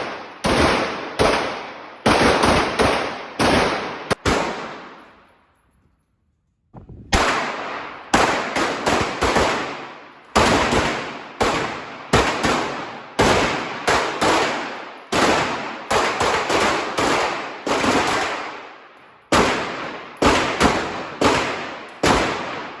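Pistol shots fired in quick strings, each sharp crack trailing off in echo, with a brief pause about five seconds in.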